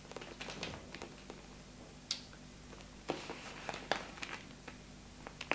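Faint handling sounds of two small leather handbags, a lambskin Chanel mini flap with a chain strap and a Furla Metropolis mini, being turned over in the hands: scattered soft taps and ticks, a few sharper ones about two, three and four seconds in.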